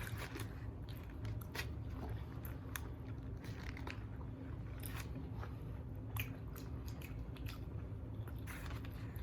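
Close-miked eating of Wingstop chicken wings: irregular crunchy bites and wet chewing and mouth clicks over a steady low hum.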